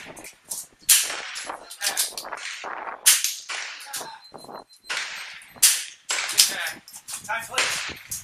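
.22 LR rimfire rifle firing, several sharp cracks a second or two apart, with the ring of bullets striking a steel target. Gusty wind noise on the microphone, partly filtered out, runs underneath.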